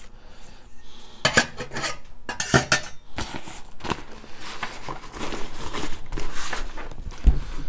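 Stainless steel canteen cup lid clinking against the metal cup kit as it goes into the bag, a few sharp metallic clinks. It is followed by the rustle of the nylon canteen bag being handled, and a low thump near the end.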